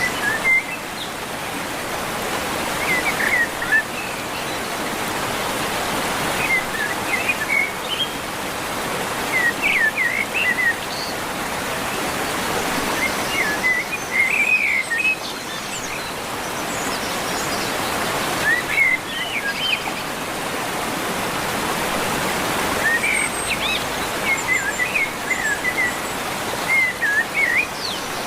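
Birds chirping in short clusters of quick rising and falling notes every few seconds, over a steady rushing background noise.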